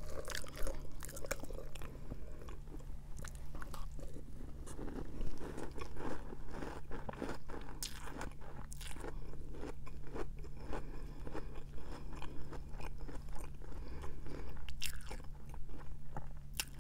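Close-up crunching and chewing of Cap'n Crunch's Christmas Crunch cereal in milk, with a few sharp clinks of a metal spoon against a glass bowl.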